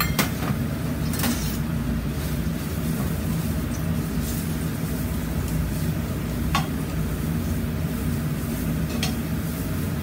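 Dried daikon strips being stir-fried in a frying pan and tossed with metal tongs, with a few clicks of the tongs against the pan, over a steady low hum.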